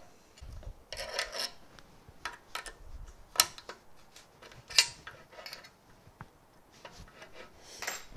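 Hand assembly on an aluminium V-slot extrusion frame: a hex key and small metal parts scraping and clicking as a bracket plate is screwed on, with two sharp metallic clicks in the middle.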